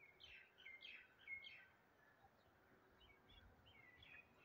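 Faint birds chirping in the background: a quick run of short chirps in the first second and a half, then softer chirps again later.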